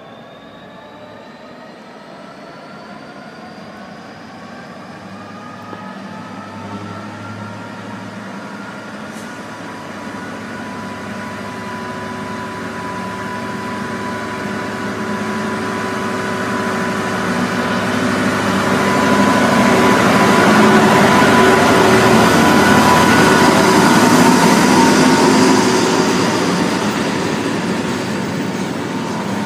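Class 66 diesel locomotive's two-stroke V12 engine working hard as it hauls a container freight train away, its note rising as it accelerates. It grows steadily louder as the locomotive draws near, is loudest as it passes, and then container wagons rumble by near the end.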